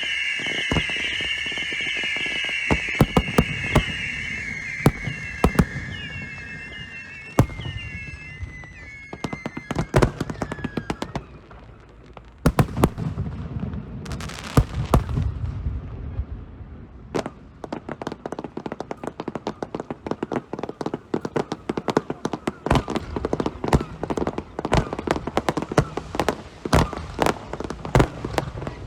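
Fireworks show: several high wavering whistles sound together, fading out about eight to ten seconds in, over scattered sharp bangs. From about twelve seconds in come dense crackling and rapid pops of fireworks bursts.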